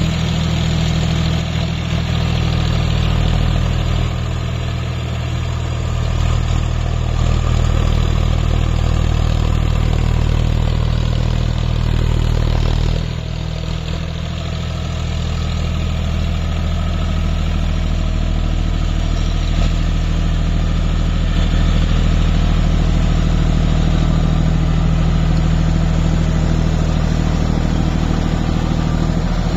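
John Deere 5050D tractor's three-cylinder diesel engine running steadily under load, driving a PTO-powered rotavator that churns through the soil. The sound dips briefly about thirteen seconds in.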